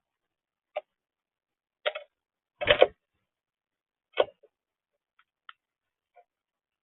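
A few scattered sharp taps and clicks, the loudest a short clatter about three seconds in, followed by fainter ticks.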